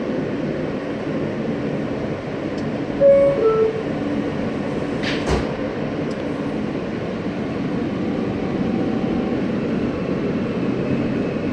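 Interior of an R160A subway car: a steady rumble and hum, with a short two-note descending chime about three seconds in and a sharp clunk a couple of seconds later, typical of the door-closing chime and the doors shutting. Near the end a faint high whine from the Alstom propulsion begins to rise as the train starts to move.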